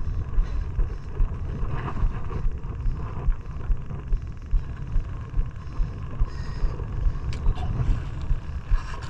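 Steady low rumble of a small fishing boat at sea, pulsing about twice a second.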